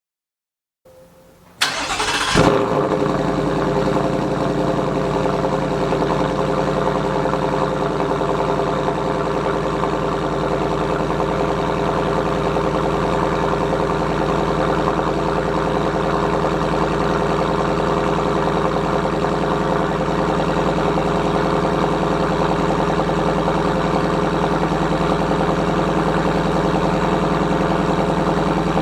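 2024 Ford F-150's 5.0 L Coyote V8 starting through a freshly installed Corsa Xtreme cat-back exhaust: a brief crank, a loud flare of revs about two seconds in, then a steady idle.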